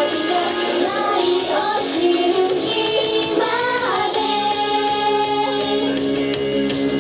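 Japanese idol pop song: female vocals sung over a backing track. The singing stops about four seconds in, leaving the instrumental with held chords.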